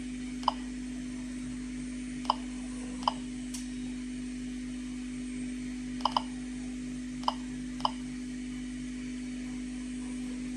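Geiger-counter dosimeter clicking at the background count rate: about seven short, pitched click-beeps at uneven intervals, two of them nearly together around six seconds in.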